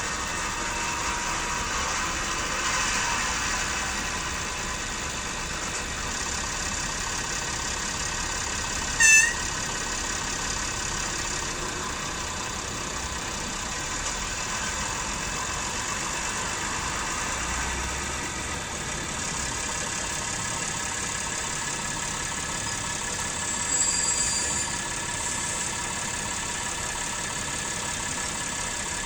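Sound decoder of a PIKO model railbus playing a diesel engine running sound through its small speaker, steady throughout. About nine seconds in a brief, loud high toot cuts in.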